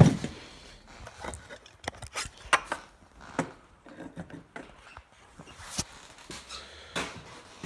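Irregular clicks and knocks, one sharp one at the very start and more scattered through the rest, with no engine running.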